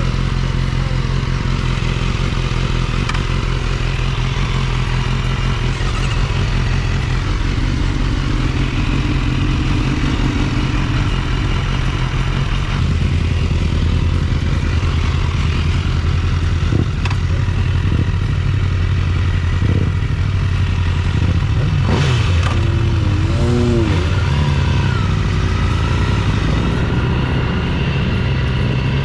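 Motorcycle engine running steadily under way, with its pitch stepping down about 13 seconds in.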